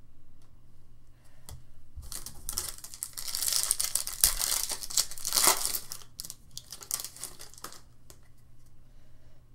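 A foil Bowman Chrome football card pack being torn open and its wrapper crinkled, loud for about four seconds starting about two seconds in. Lighter rustles and clicks of the cards being handled follow near the end.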